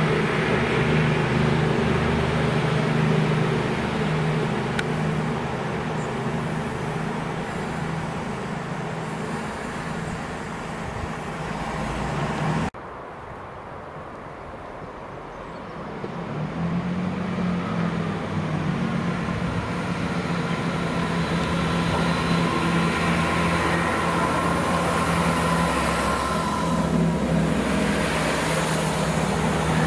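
A CrossCountry Class 220 Voyager's diesel engines run with a steady low drone that slowly fades. After an abrupt cut, a GWR Class 165 Turbo diesel unit approaches and runs close past, its engine note building with a higher steady whine over a low drone.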